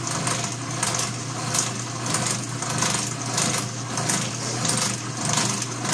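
Atlas horizontal milling machine running and cutting a slot in a stainless steel piston valve while the knee is fed up by hand. It gives a steady hum with a regular metallic ticking of about one to two a second. The cut is running smoothly at this depth of pass.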